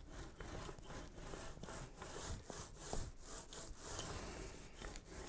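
Small foam roller loaded with epoxy rolled back and forth over a plywood panel: a faint, rhythmic swishing, about two strokes a second.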